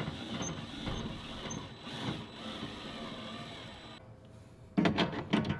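Black & Decker 12-volt cordless drill driver driving bolts, its motor whirring in short bursts, with the loudest burst near the end.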